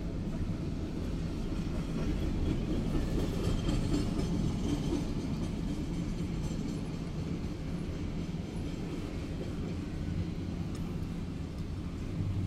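Double-stack intermodal container train rolling past, with a steady rumble of its wheels on the rails, heard from inside a car by the track.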